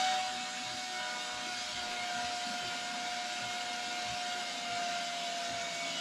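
An electric motor running steadily: a rushing, airy noise with one steady whine that sinks very slightly in pitch.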